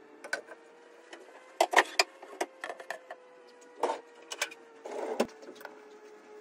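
Kitchenware being set down on a slatted wooden table: a string of clicks and clacks from a glass baking dish, a plastic cutting board and a knife, with two short scrapes and the loudest knock a little after five seconds. A faint steady hum runs underneath.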